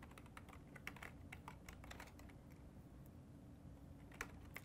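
Faint typing on a computer keyboard: a run of light, unevenly spaced keystrokes as a terminal command is typed.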